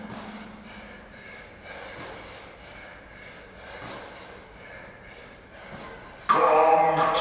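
A person breathing hard from exertion, with sharp exhales about every two seconds. Loud music comes back in abruptly near the end.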